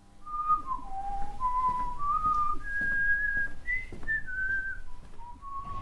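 A person whistling a slow tune, one clear held note after another, climbing to its highest notes about halfway through and then falling back.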